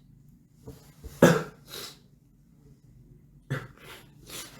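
A man sneezes once, sharply, about a second in, after a short intake of breath and with a hissing exhale just after.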